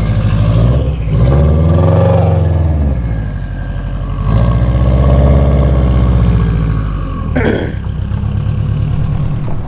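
Subaru WRX's turbocharged flat-four engine revved twice while parked, each rev climbing and dropping back to idle, loud, with a lot of turbo sound. A short whoosh comes about seven and a half seconds in.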